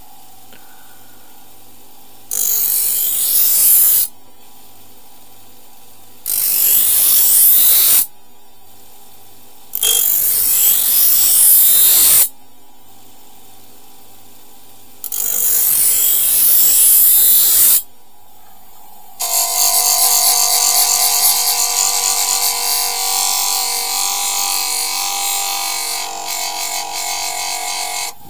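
Dnipro-M bench grinder running with a steady motor hum, while an Ontario Rat-1 knife's steel blade is pressed to the wheel in four separate passes of about two seconds each, each giving a loud hissing grind. About two-thirds of the way in, a longer unbroken stretch of grinding follows as the blade is sharpened and polished.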